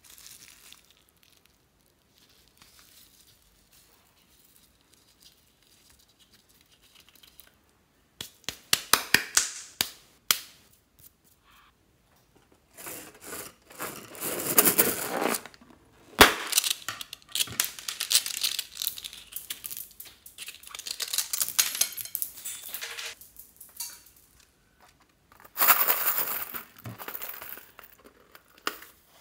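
Crinkling, crackling handling noise in bursts as rubber balloons filled with slime and beads are squeezed and cut open with scissors, with one sharp click about halfway. The first several seconds are almost quiet.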